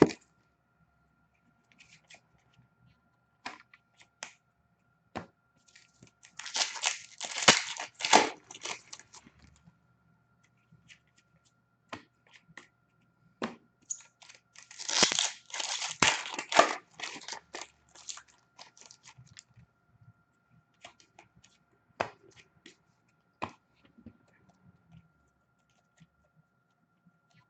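Hockey card pack wrappers being torn open and crinkled, in two dense bursts a few seconds apart, with scattered light clicks and rustles of cards being handled in between.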